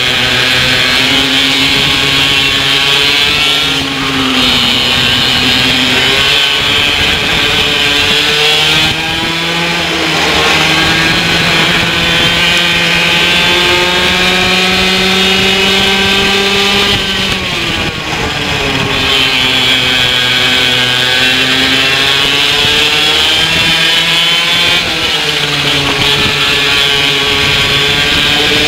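Racing kart engine heard on board at full race pace, its pitch rising and falling over and over as it revs up and drops off. It climbs steadily for several seconds in the middle before falling sharply.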